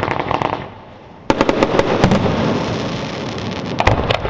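Fireworks display: dense rapid crackling and bangs, cut off briefly, then a sudden loud volley of crackles about a second in, a low rumble, and another cluster of bangs near the end.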